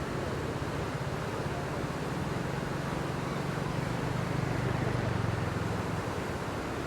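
Steady rush of a fast, full river pouring through a weir. Over it, a low engine hum builds, is loudest about five seconds in, then fades away about six seconds in, like a motor vehicle passing.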